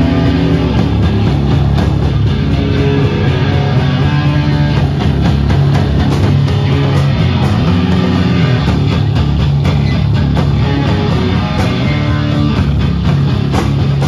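Live metal band playing loud, with electric guitars and a drum kit.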